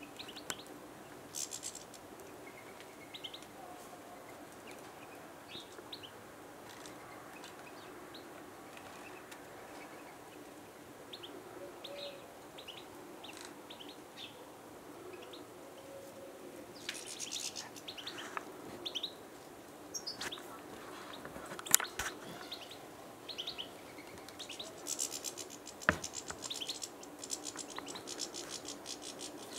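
Garden songbirds chirping and calling in short, scattered high notes, with fast trills past the middle and again near the end. Two sharp clicks cut in during the second half, the first the loudest sound.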